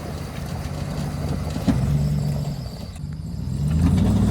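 Dodge Ram pickup's engine running at low revs as the truck tries to crawl off a rock it is high-centred on, resting on its frame. The revs and loudness rise near the end, with a few sharp knocks along the way.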